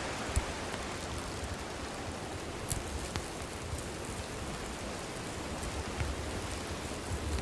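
Campfire burning: a steady hiss with a few sharp pops and crackles from the burning wood.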